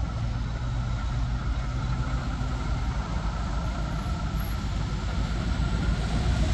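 Diesel engine of a heavy tanker truck pulling two trailers, running steadily at low speed as it works through a roundabout, with a low engine note and road noise.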